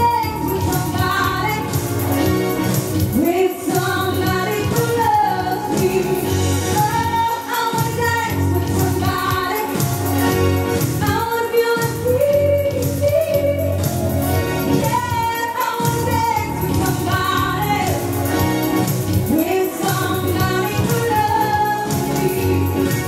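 A woman singing lead vocals into a microphone with instrumental accompaniment.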